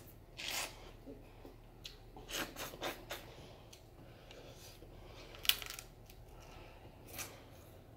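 Close-up eating sounds from a bowl of seafood gumbo: a scatter of short crackles and clicks, the sharpest about five and a half seconds in.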